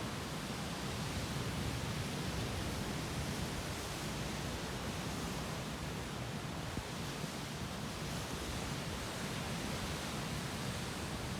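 Sea surf: waves washing ashore as a steady, even rush with no distinct crashes standing out.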